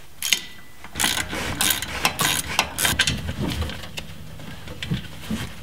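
Hand socket ratchet clicking in quick runs as the lower mounting bolt of a Jeep Cherokee's front shock absorber is backed out, with a few knocks of the tool against the mount.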